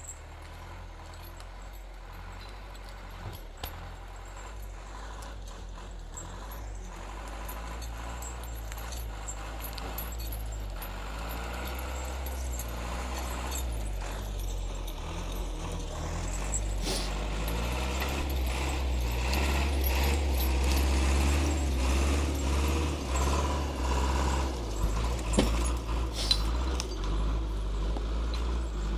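Log skidder's diesel engine running and growing steadily louder as the machine works, with a few sharp knocks near the end.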